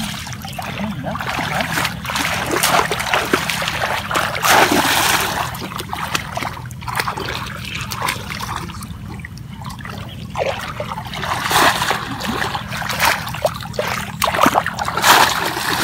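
Shallow muddy water splashing and sloshing as conical bamboo plunge baskets are pushed down into it and hands feel around inside them for fish. Irregular splashes, loudest about two to five seconds in, again around eleven seconds, and near the end.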